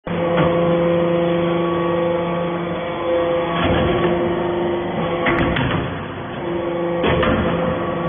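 Hydraulic power unit of a vertical steel-powder briquetting press running with a steady hum as the ram presses down into the mould of metal powder. Its tones shift and drop in and out, with several sharp knocks and clicks, the loudest about halfway through.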